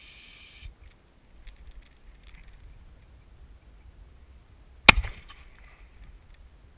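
A double-barrelled shotgun fires once, about five seconds in: a sharp crack with a short echo. A brief high steady tone opens the clip and cuts off abruptly.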